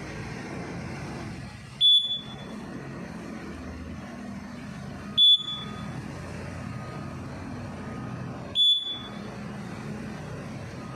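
Three short, high beeps, about three and a half seconds apart, from a fire alarm control panel's buzzer: the trouble beep it gives while running without its backup battery. A steady low hum runs underneath.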